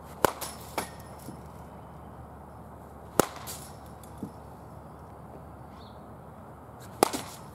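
Baseball bat hitting balls: three sharp cracks about three and a half seconds apart, each followed within half a second by a softer knock.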